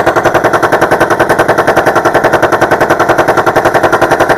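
Machine-gun fire sound effect in one long, unbroken burst of rapid, evenly spaced shots, about ten a second.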